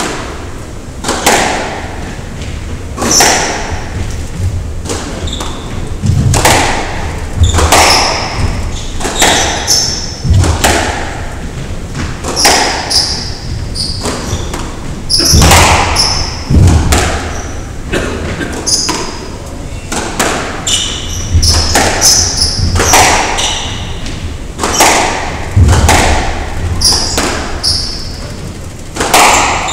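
Squash rally: the ball cracking off racquets and thudding against the walls, a hit about every one to two seconds, with shoes squeaking on the wooden court floor between shots.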